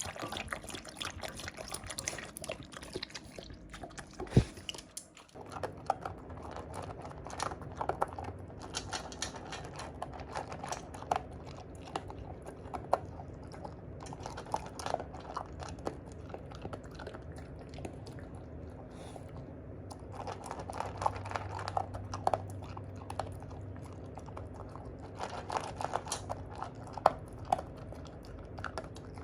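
A dog crunching and chewing dry kibble, with irregular crackling bites, and a single sharp knock about four seconds in.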